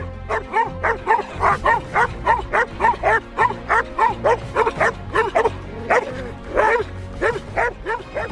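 Dogs barking rapidly and repeatedly, about two to three barks a second, in agitation at a cobra raised in front of them; the barking stops near the end. Background music plays underneath.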